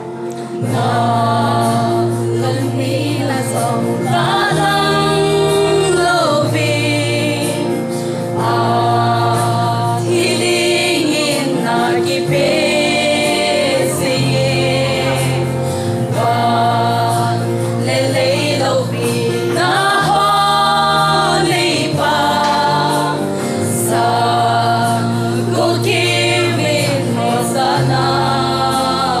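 A small group of young women sing a gospel song together into microphones. Their phrases last a few seconds each, with short breaks between lines, over steady sustained accompaniment chords.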